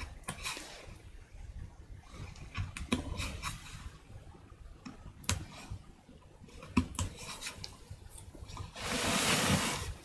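Hand carving tools working a woodblock: short scraping cuts and sharp clicks of a knife and a fine chisel in the wood, a few seconds apart. Near the end, about a second of rushing noise as a hand brushes across the block.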